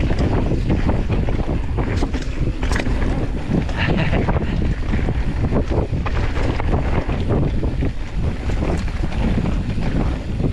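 A mountain bike descending a dirt singletrack: tyres rumbling over the ground with a steady stream of knocks and rattles from the bike, and wind buffeting the microphone.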